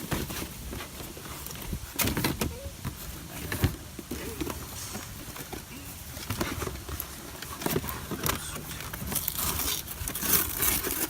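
Packaging being handled: plastic bags and cardboard rustling and crinkling, with scattered light knocks as model kit parts are taken out, the crinkling busiest near the end.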